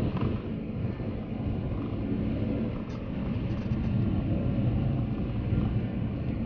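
Steady low rumble of a car's road and engine noise heard inside the cabin while driving, with tyres running on wet, slushy pavement.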